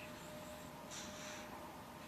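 A sleeping baby snoring softly, one hissy breath about a second in.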